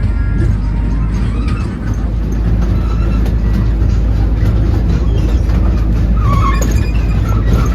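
Amusement-park ride train running along its track, a steady low rumble with light clicking.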